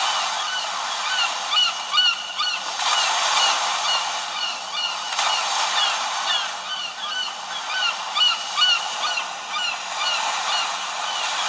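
Samsung Galaxy S3 preloaded nature ringtone playing: a dense chorus of bird calls, many short chirps and honks repeating over a steady noisy background.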